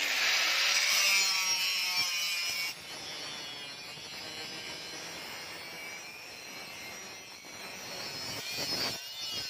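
Hand-held angle grinder with a flap disc grinding the steel of a knife blade: a steady high whine with a gritty hiss. It starts abruptly, drops suddenly about three seconds in, and grows louder again near the end.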